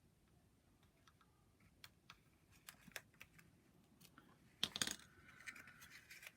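Faint, scattered light clicks and ticks of cardstock pieces being handled and pressed into place, with one brief, sharper crackle of card about two thirds of the way through.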